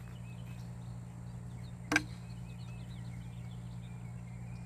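A single sharp strike of a garden hoe chopping into soil about two seconds in, over faint repeated bird chirps and a steady low hum.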